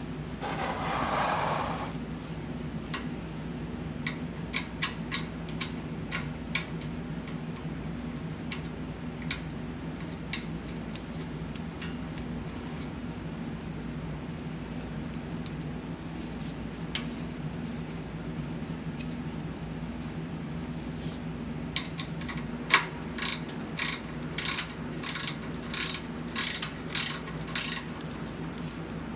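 Small clicks and taps as a motorcycle's oil drain plug is threaded in by hand. Near the end a ratchet wrench runs the plug in, clicking loudly in quick repeated strokes, about two a second. A steady low hum sits underneath.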